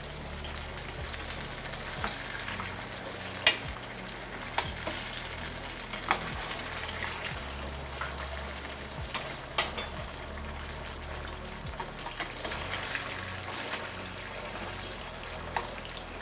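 Halved potatoes sizzling steadily as they fry in oil in a stainless steel frying pan. Several sharp metallic clicks of tongs against the pan as the pieces are turned, the loudest about three and a half seconds in and again near ten seconds.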